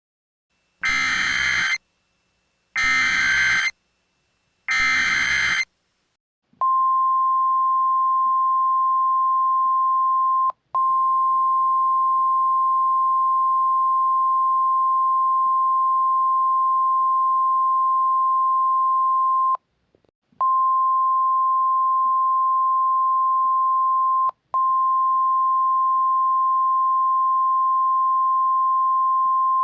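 Simulated Emergency Alert System broadcast: three short bursts of digital data screech, about a second each and a second apart (the SAME header), then the NOAA Weather Radio warning alarm, a single steady tone near 1 kHz, which breaks off briefly three times.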